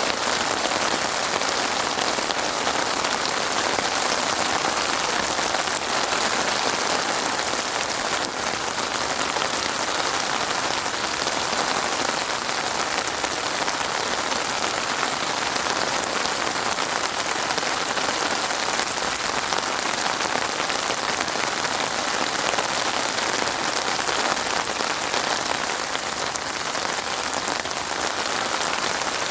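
Steady rain falling on a surface, an even pattering hiss without pauses or thunder.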